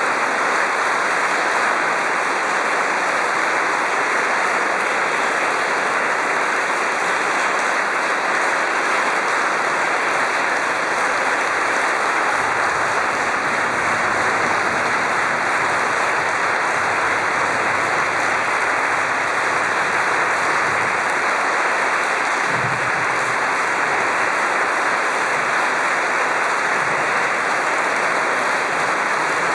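Audience applauding, a dense, steady clapping without a break.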